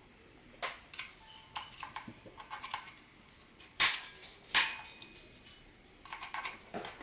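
Latching push-button selector switches being pressed and released, a series of sharp mechanical clicks, the two loudest about four and four and a half seconds in and a quick cluster near the end. The switches had felt rough and their slides are freshly greased.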